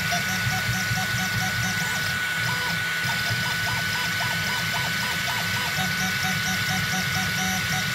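3D printer's stepper motors whirring in short tones that change pitch many times a second as the print head moves back and forth, over a low hum and a steady high whine.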